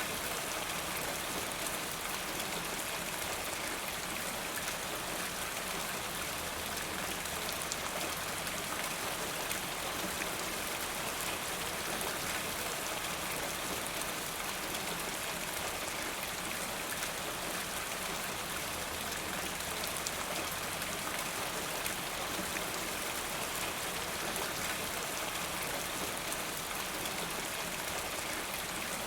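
Steady rain falling in a forest, an even hiss of drops on leaves and ground with fine patter of individual drops.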